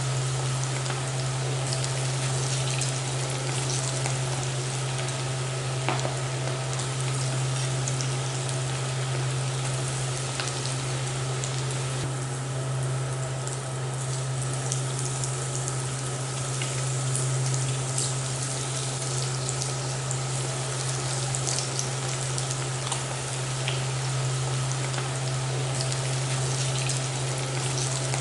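Breadcrumb-coated chicken pieces deep-frying in hot oil: a steady sizzle with fine crackling pops, over a steady low hum.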